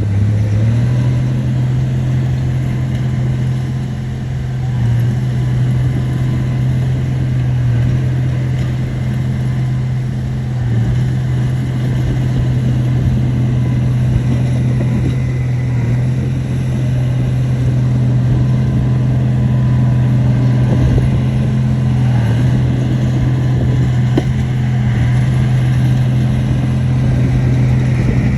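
Heavy earthmoving machine's diesel engine running at a steady, high engine speed, loud and unbroken throughout.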